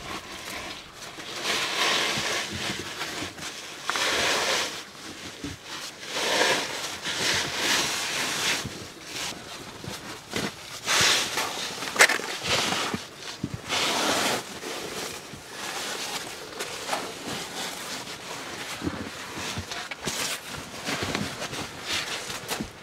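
A caver's oversuit rustling and scraping against rock while squeezing up out of a narrow rock hole, in repeated noisy bursts of about a second, with scattered small knocks and one sharp knock about twelve seconds in.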